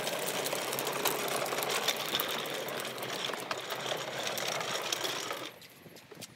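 Electric lawnmower being pushed with its motor off, its wheels and plastic body rattling over concrete and paving; the rattling stops near the end.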